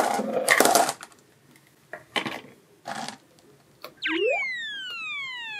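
A clatter of plastic toy balls and a few light clicks of plastic toys being handled, then a cartoon sound effect: a whistle tone that slides steadily down in pitch for about two and a half seconds, with a short upward chirp at its start and another at its end.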